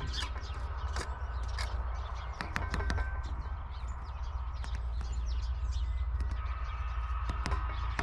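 Great spotted woodpecker pecking at food: irregular sharp taps, several a second, too uneven for drumming. Short bird chirps sound now and then over a steady low rumble.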